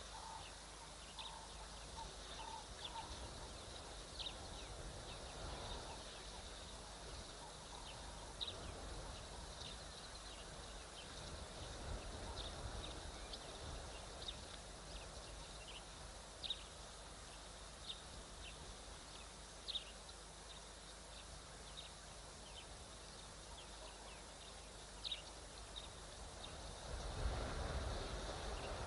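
Faint background with many short, high-pitched animal chirps scattered irregularly, about one every second or two. A low rumble rises near the end.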